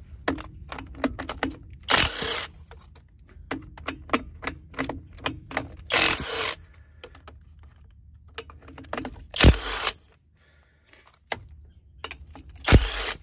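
Kobalt 24V brushless mid-torque impact wrench hammering in four short bursts of about half a second each, breaking rusted truck lug nuts loose, with lighter clicks and rattles between the bursts.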